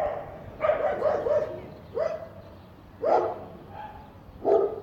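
A dog barking repeatedly, several short barks about a second apart.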